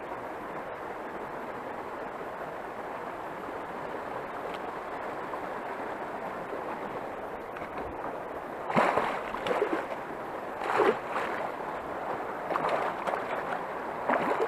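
Steady noise of flowing river water, then from about nine seconds in a hooked fish splashing and thrashing at the surface in the shallows as it is brought to hand, in several sharp splashes, the loudest about nine and eleven seconds in.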